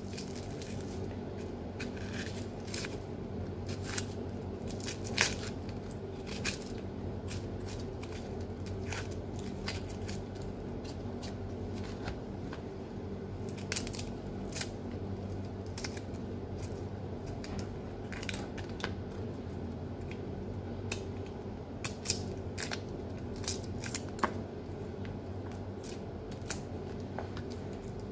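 Small kitchen knife nicking and scraping at onion and shallot skins as they are peeled, making irregular sharp little clicks and snips over a steady low hum.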